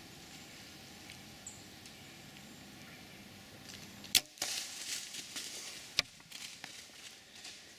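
A Mathews Z7 compound bow (70 lb) shot at a whitetail doe: a single sharp crack about four seconds in as the arrow is loosed and strikes, followed at once by the rustle and patter of the deer bolting through dry fallen leaves, with a second sharp snap about two seconds later. Before the shot there is only a faint low background with a few small ticks.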